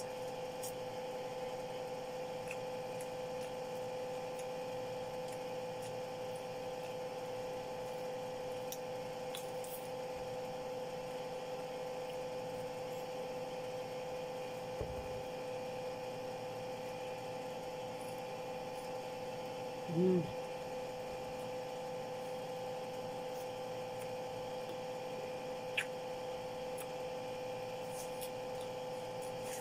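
A steady electrical hum, with a short hummed voice sound about twenty seconds in and a soft low thump and a faint click scattered in between.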